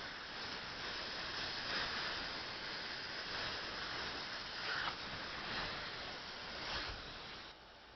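Steady hiss of a dental air-water syringe and suction rinsing the acid etch off the teeth, cutting off abruptly near the end.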